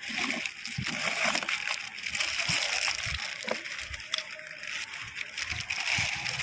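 Packaging rustling and parts being handled while a new water pump is unwrapped, a continuous crinkly rustle with a few light knocks.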